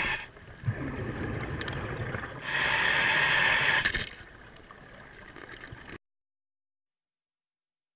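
A diver's exhaled breath bubbling out of a scuba regulator underwater, one burst lasting about a second and a half, starting about two and a half seconds in, over a low watery rumble. The sound cuts off to silence about six seconds in.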